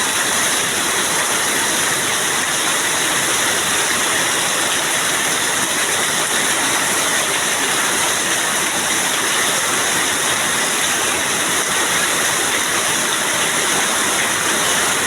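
Heavy rain pouring down, a dense, steady hiss with no letup.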